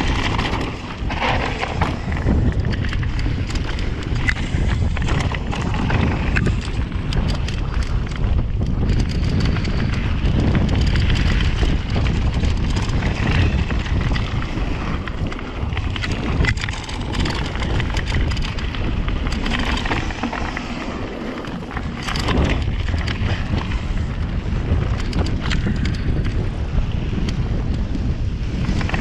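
Rocky Mountain Slayer full-suspension mountain bike descending a rough trail: tyres rumbling over dirt and rocks, with a constant clatter and rattle of chain and parts. Wind buffets the action camera's microphone with a low rumble.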